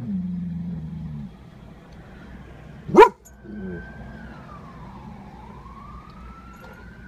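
A dog barks once, loudly, about three seconds in. Right after it an emergency vehicle's siren wails, one slow fall and rise in pitch. A low steady hum is heard for the first second.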